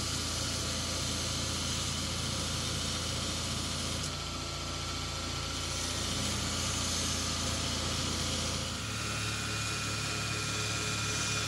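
Belt grinder running with a Damascus steel sword blade pressed against the belt on its contact wheel, grinding in the fuller: a steady hiss of abrasive on steel over the motor's hum. About nine seconds in the hum changes abruptly as the work moves to a horizontal belt grinder.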